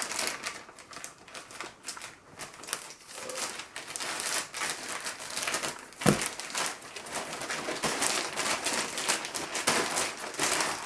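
Packaging crinkling and rustling as it is handled and opened to unwrap a garment, with a single thump about six seconds in.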